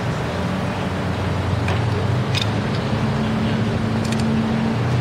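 An engine running steadily with a low hum whose pitch steps up and down a few times, with a few short sharp clicks over it.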